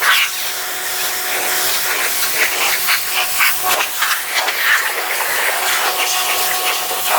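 High-pressure washer jet spraying against the car's surfaces: a steady hissing spray that swells and dips as the wand moves, over a faint steady hum from the washer's motor.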